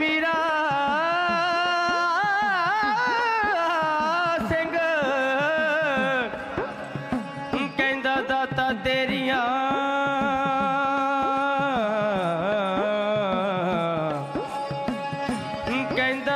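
Dhadi music: a long, wavering melody on the sarangi and held voices, over quick strokes on the dhadd, the small hourglass drums, whose pitch bends with each stroke.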